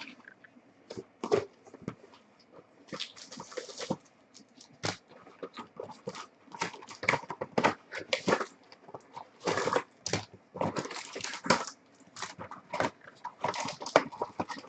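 Foil trading-card pack wrappers being torn open and crinkled, with cards handled in between: a busy run of quick crackles and rustles.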